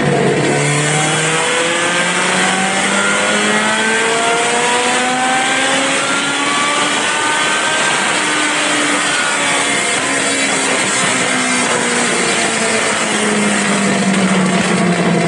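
Zakspeed Ford Escort RS1800 race car's 1840cc four-cylinder engine run loud on a rolling road: it pulls steadily up through the revs under load for about seven seconds, then winds back down over the next six.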